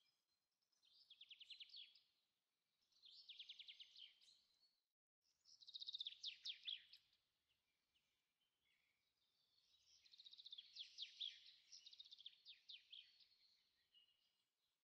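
Faint songbird chirping in rapid high trills, in four bursts of one to four seconds each.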